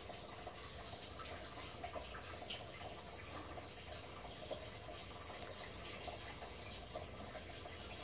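Faint steady hiss with scattered light ticks.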